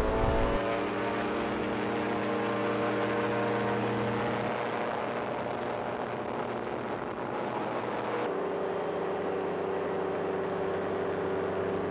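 Ultralight trike's engine and propeller running at full takeoff power: a steady, even drone that settles after climbing in pitch at the start. About eight seconds in the tone changes abruptly.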